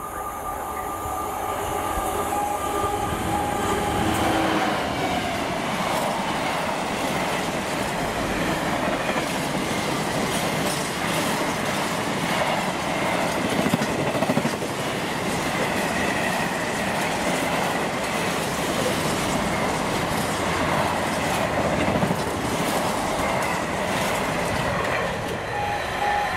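DB Cargo Class 66 diesel locomotive, with its two-stroke V12 engine, passing at speed on a container freight train. Its engine note drops as it goes by, about four seconds in, then the container flat wagons roll past with a steady rumble and clickety-clack of wheels over rail joints.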